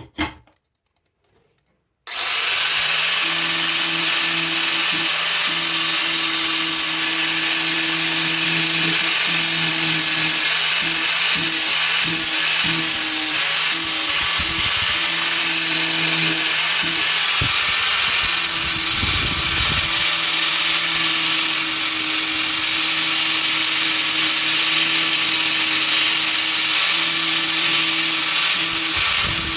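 Power grinder with an 80-grit flap wheel starts about two seconds in and runs steadily against steel, grinding a rounded appleseed edge onto a chisel's cutting end. The motor's steady hum wavers and dips briefly now and then as the work is pressed and moved.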